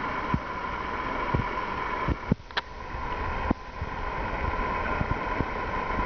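Steady hum and hiss of lecture-hall room noise, with a few soft knocks.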